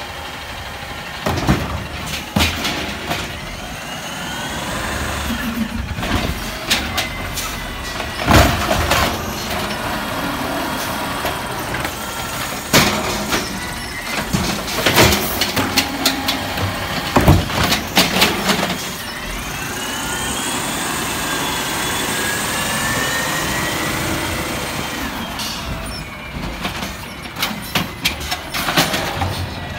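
Autocar ACX garbage truck with a natural-gas engine and an Amrep automated side-loader arm dumping curbside carts. There are several sharp bangs as the carts are shaken and knocked against the hopper and set back down, and a longer whine that rises and falls as the truck works up.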